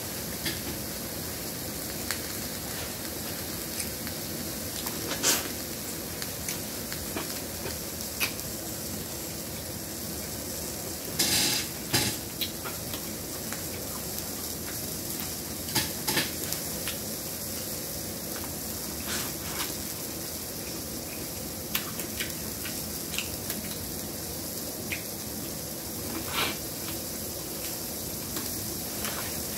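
Close-miked eating: biting and chewing corn on the cob, with scattered short clicks and taps from handling food on the platter, over a steady background hiss.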